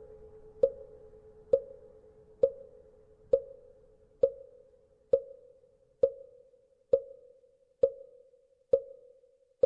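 Buddhist wooden fish (mõ) knocked at a slow, even pace, a little under one stroke a second, each knock ringing briefly at one hollow pitch. Under the first few knocks, the hum of a temple bell struck earlier dies away.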